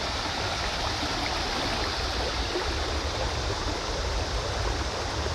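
Shallow creek running over a rocky riffle: a steady rushing of water.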